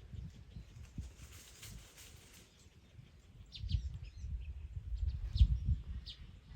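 Short high chirps from an animal, starting about halfway through and repeating every half second or so, over a low rumbling noise.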